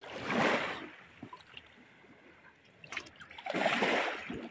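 Water splashing as a mesh scoop net is swept through shallow water, in two surges: one at the start and another about three and a half seconds in.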